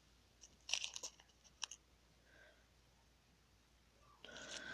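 A small plastic bag of fishing swivels handled in the fingers: a few short crinkles about half a second to a second and a half in, then quiet, then more rustling near the end.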